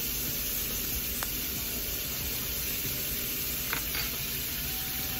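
Filet mignon steaks sizzling steadily in oil in a hot cast iron skillet as pats of butter melt in around them, with two faint clicks partway through.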